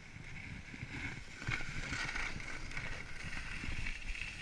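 Skis sliding and scraping over packed snow in a steady hiss, with wind rumbling on the camera's microphone.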